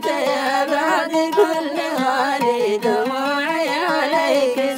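Hadhrami song in the Mishqasi style: a sung melody winding and ornamented in pitch over plucked string accompaniment.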